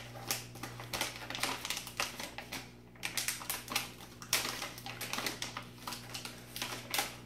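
Plastic Smart Sweets gummy bear pouch crinkling and crackling in irregular clicks as it is handled and pulled at in an attempt to tear it open.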